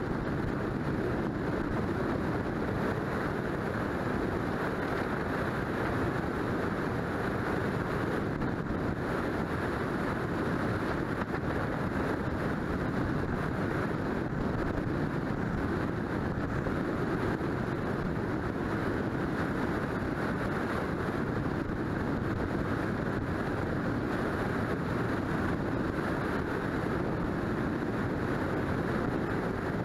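Steady rush of wind and road noise from a vehicle cruising at highway speed, picked up by a camera mounted on its hood; an even, dull roar with no separate events.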